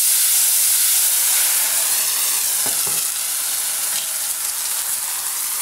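Water poured into a hot roasting tin of vegetables in rendered lamb fat, sizzling loudly as it hits the hot metal and fat and flashes into steam. The sizzle eases a little over the seconds.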